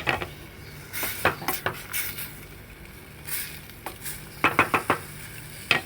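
Metal utensil clinking and knocking against a cooking pot, a scatter of sharp separate knocks with a quick run of about five taps a little past halfway.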